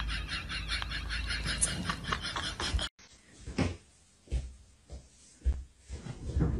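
For about three seconds, a dense hiss over a low rumble. Then it cuts off abruptly, and a cat pouncing on a soft bedspread makes a few soft thumps and rubs, spaced about a second apart.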